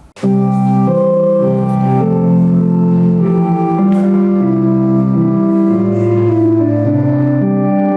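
Organ playing full sustained chords that change every second or so, cutting in abruptly just after the start.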